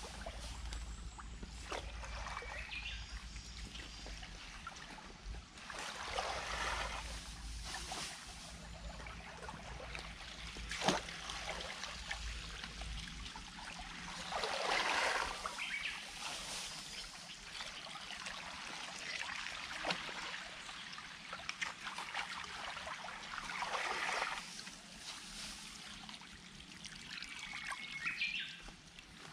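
Water trickling and running along a shallow concrete irrigation channel, with several louder rushes of noise every few seconds and a single sharp click partway through.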